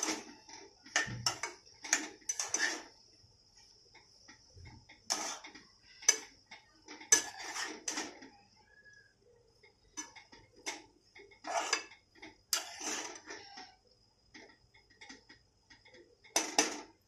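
A spatula scraping and knocking against a kadhai as mashed, spiced potato filling is stirred and mixed, in irregular strokes with short pauses.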